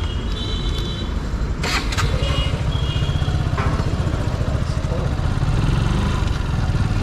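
Motorcycle engine running with road and wind rumble while riding in traffic. Other vehicles' horns honk briefly near the start and again about two and a half seconds in, and there is a sharp knock just before that.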